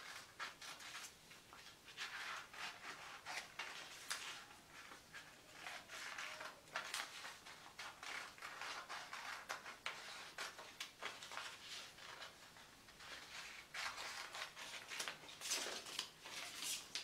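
Scissors snipping through a printed paper pattern along its marked outline, with the paper rustling as it is turned; faint, irregular cuts coming in short runs.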